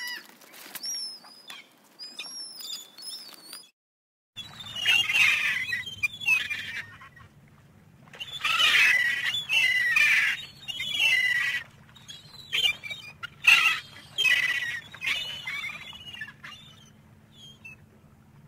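Gulls calling: first a run of thin, high, gliding calls, then, after a short break, loud harsh squawking calls in several bouts over a steady low hum, thinning out near the end.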